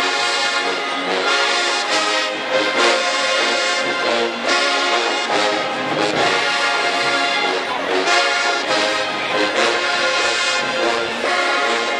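Large HBCU marching band's brass section playing, trumpets, trombones and sousaphones sounding full chords together in short, changing phrases.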